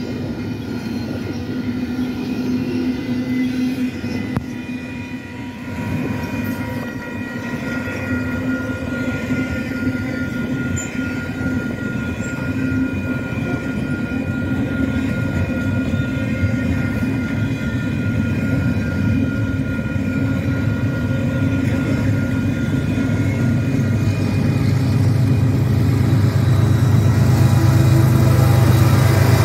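Double-stack intermodal freight train rolling past, its cars clattering steadily along the rails. In the last few seconds the low rumble of approaching Union Pacific diesel locomotives grows louder.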